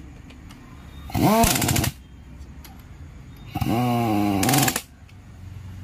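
Handheld power impact wrench running bolts on the diesel engine's cylinder head in two bursts, a short one about a second in and a longer one near the end. Each burst has a motor whine that rises and falls over rapid hammering.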